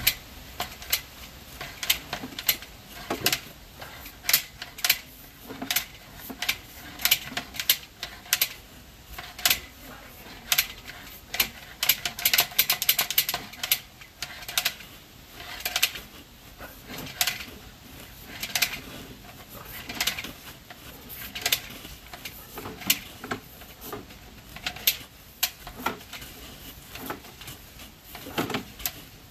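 Sewer inspection camera and its push cable being worked through a binding turn in the sewer line, giving irregular sharp clicks and knocks, about one or two a second, with a quick clatter of them about twelve seconds in.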